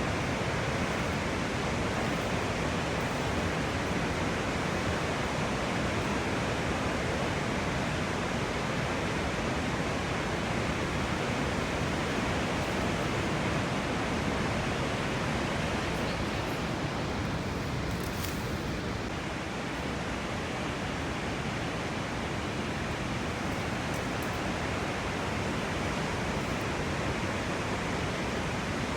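Victoria Falls waterfall roaring with a steady, even rush of falling water.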